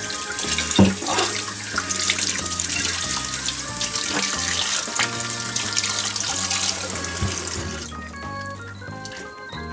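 Kitchen tap running and splashing over hands rinsing a skinned squid in a stainless-steel sink, shutting off near the end. Background music plays underneath.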